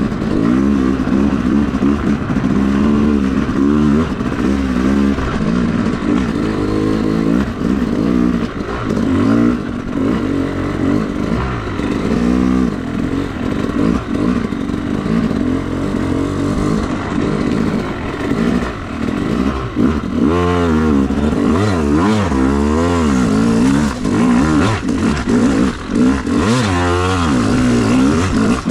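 Yamaha YZ250 two-stroke dirt bike engine being ridden on a trail, its pitch rising and falling over and over as the throttle is opened and closed.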